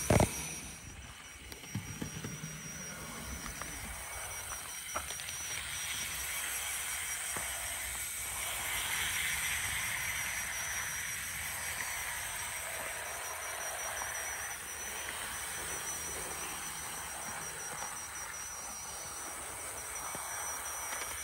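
00 gauge model GWR outside-framed 4-4-0 locomotive running along garden railway track: a steady hissing whirr of its motor and wheels on the rails that swells about eight to twelve seconds in as it passes close. There is a sharp click right at the start and a few light clicks soon after.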